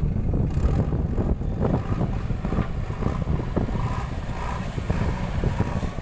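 JCB 3DX backhoe loader's four-cylinder diesel engine running as the machine drives over rough ground, a steady low rumble, with wind buffeting the microphone.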